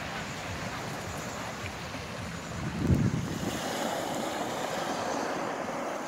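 Small sea waves breaking and washing over a pebble beach, with wind buffeting the microphone; a loud low gust hits the microphone about halfway through.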